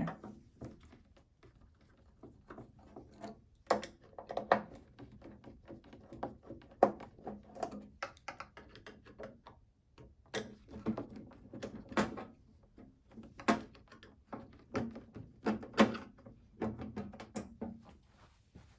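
Irregular clicks and knocks of a Phillips screwdriver working screws out of a Zebra ZT400-series printer's plastic case, with the tool and parts tapping against it.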